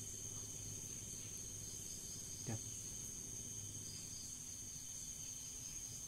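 Steady high-pitched chirring of insects in the background, with a single short click about two and a half seconds in.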